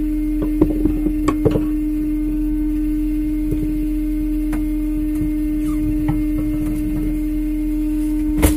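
Fishing boat machinery running with a steady, even hum. There are a few knocks and clatters in the first second or so, and one sharp knock near the end.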